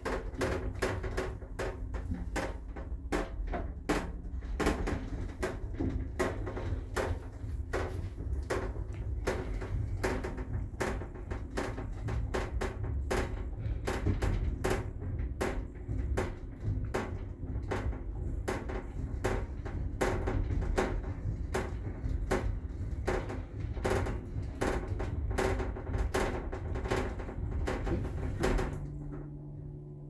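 A passenger lift car, built in 2001, travelling upward: a steady low rumble of the ride with frequent clicks and knocks, two or three a second. Near the end the rumble dies away as the car slows to its floor, leaving a steady hum.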